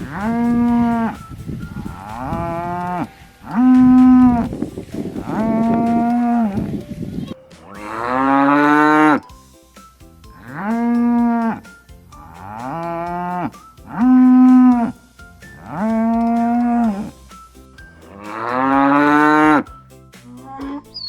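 Cow mooing, about ten separate moos of a second or so each, with two longer, rising ones.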